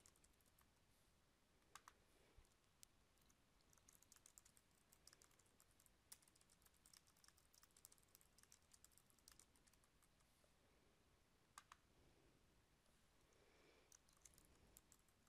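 Faint computer keyboard typing in short runs of keystrokes, with a few single clicks between them as the cursor moves to the next field.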